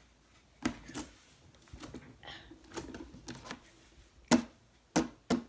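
Bubbly air slime squeezed and stretched in the hands, giving a scattering of sharp pops and clicks as trapped air bubbles burst. The loudest pop comes about four seconds in.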